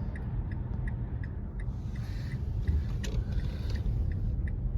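Strong wind buffeting a stopped car, a steady low rumble, with faint regular ticking.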